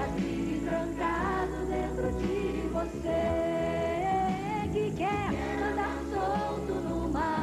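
A children's song: several voices singing together over acoustic guitar accompaniment.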